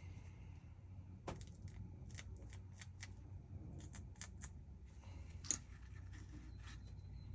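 Light, irregular clicks and taps from small tools and parts being handled at a workbench, about ten in all, with the sharpest click about five and a half seconds in, over a low steady hum.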